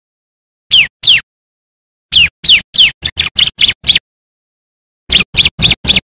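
Bar-winged prinia (ciblek) singing loudly: sharp down-slurred whistled notes, two and then three in a row, followed by quicker runs of short chirps about six a second, with silent gaps between phrases.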